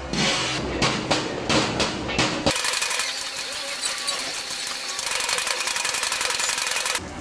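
Steel ladle clanking and scraping against a steel wok as fried rice is tossed and stirred. The first couple of seconds hold separate sharp clanks, several a second. After that comes a rapid, continuous, thinner clatter.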